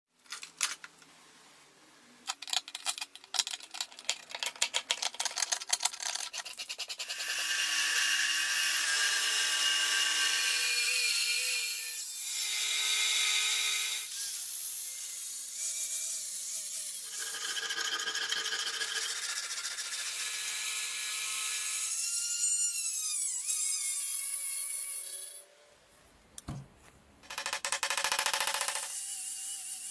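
Workshop tools at work in quick succession: a run of rapid clicks and taps, then long stretches of power-tool grinding or sanding with a steady whine, a single low thump near the end, and a last short burst of tool noise.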